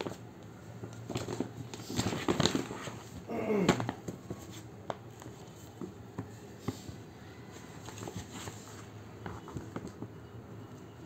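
A shopping bag rustling and crinkling as a kitten moves and plays inside it, in uneven bursts. The loudest rustling comes about two to four seconds in, with quieter scattered scratches and taps after.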